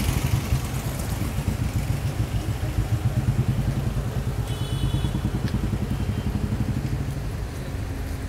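Road traffic standing in a jam: car and motorcycle engines idling close by, with a steady low pulsing engine note. A brief high-pitched tone sounds about four and a half seconds in.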